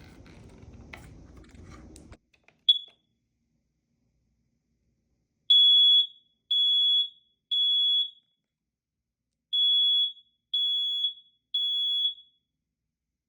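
Smoke detector beeping: one short chirp, then two groups of three loud, high, steady beeps about half a second each, with a pause between the groups. This is the three-beep smoke-alarm pattern. Faint handling noise and a click come in the first two seconds.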